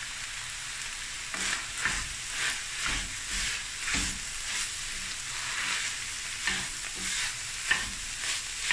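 Wooden spoon stirring and scraping steak mince with tomato paste in a stainless steel frying pan, starting about a second and a half in, about two strokes a second, over a steady sizzle of the mince frying.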